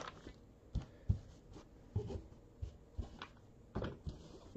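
Trading cards being handled on a table: a string of about eight or nine soft clicks and light knocks at uneven intervals as cards are sorted and set down.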